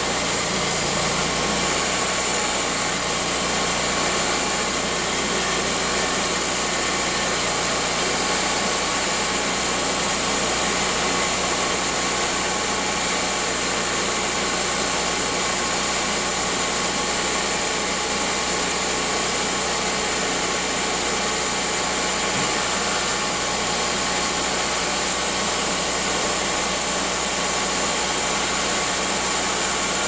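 Hydraulic portable sawmill's engine running steadily and powering the hydraulics while the log loader lifts a log onto the mill bed.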